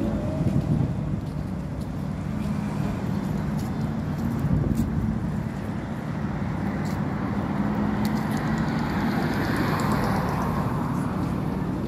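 A steady low engine hum, with a noisy swell building about nine seconds in.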